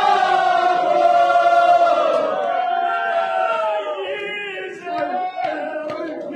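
Crowd of men chanting a mourning lament (noha) together, led by a reciter on a microphone. The chant is loud for the first few seconds and eases off about four seconds in, with a few sharp hits near the end.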